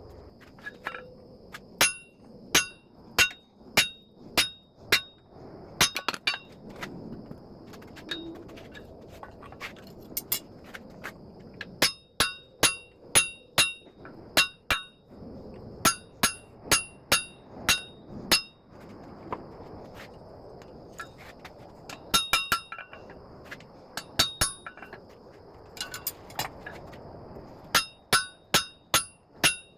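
Hand hammer striking hot steel on an anvil during forge work to split a thick steel bar. Each blow rings sharply, and the blows come in runs of several, about two a second, with short pauses between the runs.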